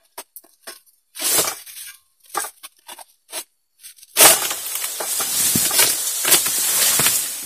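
Oil palm fronds being cut with a long-poled harvesting sickle: short scrapes and crackles as the blade works at a frond, then about four seconds in a sudden crack and a loud, dense rustling of palm leaves that lasts about three seconds and fades.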